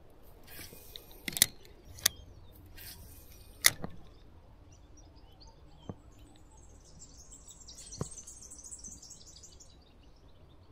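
A spinning rod and reel handled through a cast: several sharp clicks and short hisses in the first few seconds, then single clicks further on. Near the end there is a faint high chirping for about three seconds.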